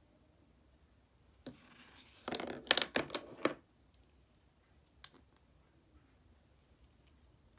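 Makeup containers being handled: a quick run of sharp plastic clicks and rattles from about a second and a half to nearly four seconds in, then a single click about five seconds in as an applicator tube is uncapped.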